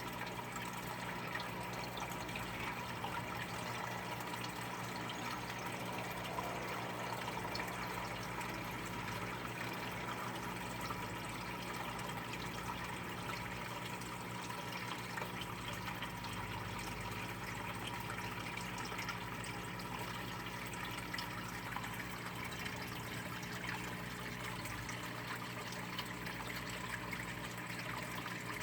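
Steady, unchanging rushing noise with a constant low electrical hum beneath it and no distinct events.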